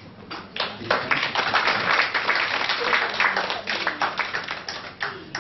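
Small group of people clapping, a dense patter of hand claps that starts about half a second in and thins out near the end.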